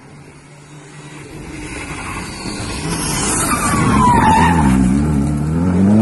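Rally car approaching at speed and sliding through a corner, its tyres skidding on loose gravel with a brief falling squeal. Then its engine revs up and down, climbing as it accelerates away.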